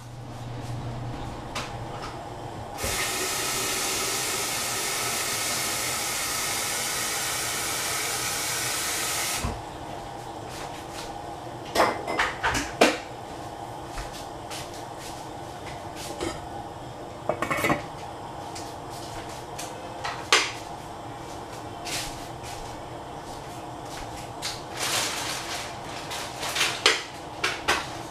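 A steady rush of running water for about seven seconds, starting and stopping suddenly, then scattered knocks and clinks of pots and utensils.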